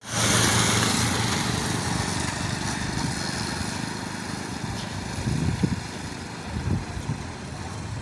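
Traffic noise from a motor vehicle going by on the road, loudest at the start and slowly fading.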